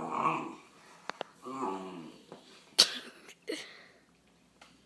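Great Dane puppy making low whining grumbles and nasal huffs while holding still over a treat, with a few sharp clicks: two close together about a second in and a louder one near three seconds.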